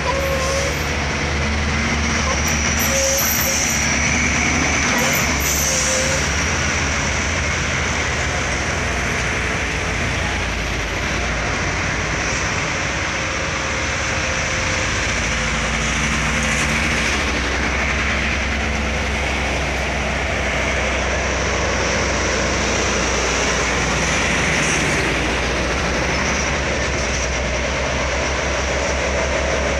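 Diesel engines of a convoy of loaded sugarcane trucks running at full throttle through a bend, a loud steady rumble that carries on without a break.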